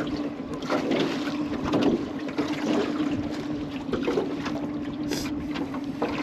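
Boat motor running with a steady hum while water slaps against the aluminum hull, with wind on the microphone.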